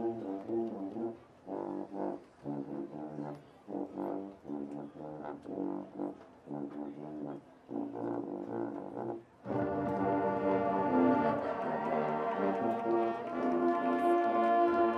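Marching band with sousaphones playing an alternative-rock arrangement. It opens with short, detached brass chords separated by brief gaps. About nine and a half seconds in, the full band comes in louder with sustained playing.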